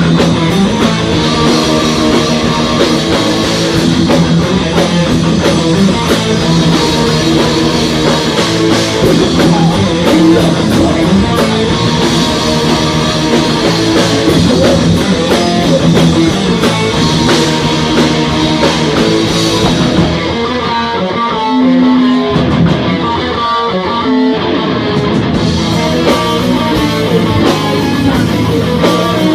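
Live heavy metal band playing loud: distorted electric guitars over bass and a drum kit. About twenty seconds in, the drums and cymbals drop out for a few seconds, leaving the guitar riff on its own, and then the full band comes back in.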